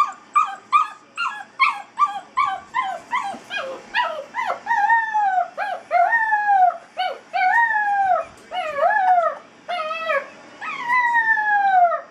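Eight-week-old basset hound puppy crying and howling at being shut in a crate for the first time. It starts as a quick run of short yelps, about three a second. From about four seconds in these turn into longer howls that rise and fall, the last one long and sliding down in pitch.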